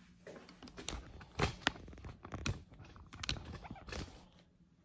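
Handling noise: fleece sweatpant fabric rustling and scraping against the phone's microphone, with irregular crackles and two louder knocks about a second and a half in.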